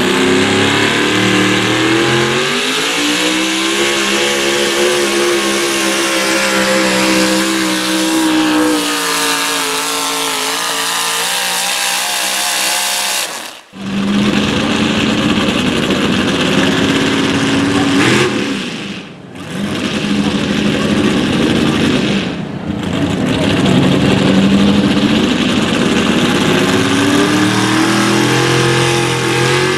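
Modified 4x4 pulling trucks' engines, breathing through open exhaust stacks, running at full power under the load of the pulling sled. The first engine rises quickly to high revs and holds there. It cuts off abruptly about 13 seconds in, a second truck's engine takes over at high revs, and it climbs again near the end.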